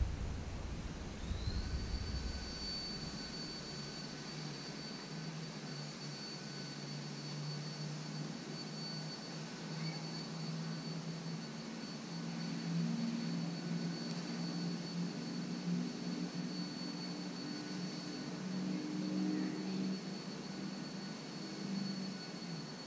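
An aircraft passing over: a steady high-pitched whine sets in about a second in, under a low, wavering engine hum that grows louder through the middle and latter part.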